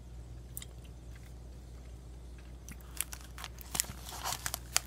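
Chewing a soft-baked protein bar with a crispy topping: a few faint clicks, then a run of crisp crackles over the last two seconds.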